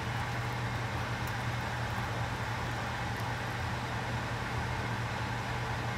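A wooden spoon stirring thick tomato and sausage meat sauce in a pan, over a steady background hum and hiss.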